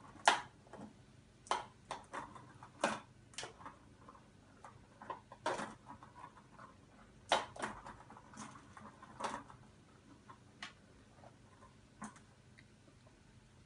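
Kitten batting at a plastic track-ball cat toy: the ball and plastic rattle and clack in irregular sharp clicks and knocks, busiest in the first ten seconds, then only a few faint ones.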